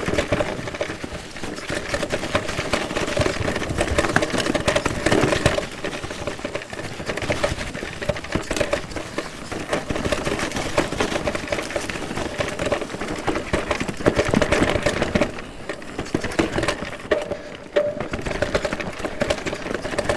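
Santa Cruz Bullit electric mountain bike ridden along a rough forest trail: tyres rumbling over dirt and roots, with the bike's chain and parts rattling and many sharp knocks from hits.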